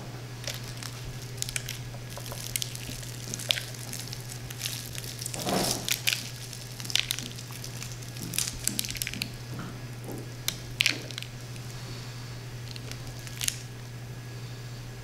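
Crisp breaded crust of a deep-fried lobster bite crackling and crunching in scattered short crackles as it is pulled apart by hand, over a steady low hum.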